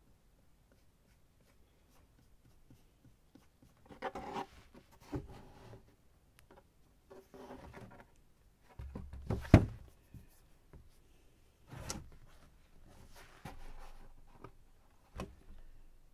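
Scattered handling sounds at a work table: short rustles and scrapes of materials being moved, with several light knocks and one sharp knock about nine and a half seconds in.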